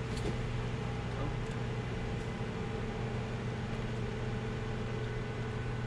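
Steady machine hum: a low, even drone with a few faint ticks, with no rise or fall.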